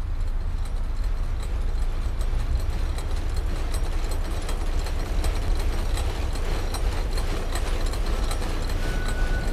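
A steady low rumble with a hiss over it and faint, irregular ticks scattered throughout.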